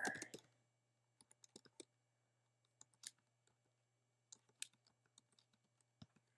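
Faint keystrokes on a computer keyboard, tapped in short irregular runs.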